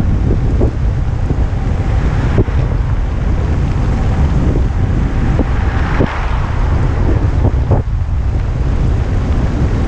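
Loud, steady wind rushing over an action camera's microphone at speed on a fast downhill ride, with a few short knocks scattered through it.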